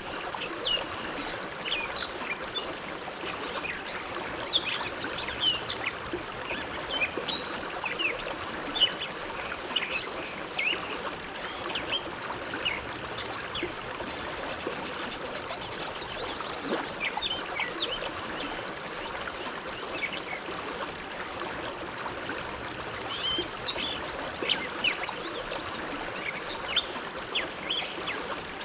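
Bow River flowing steadily, with many short high bird chirps scattered throughout.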